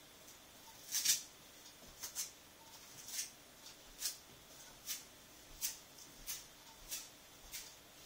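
Rose-ringed parakeets giving short, high-pitched squeaks, a little over one a second, the loudest pair about a second in.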